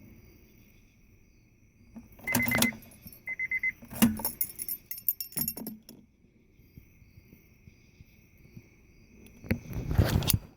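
Car keys jangling and clicking at the ignition of a Honda that won't start, in several separate bouts, with two short runs of rapid high beeps about two and three seconds in.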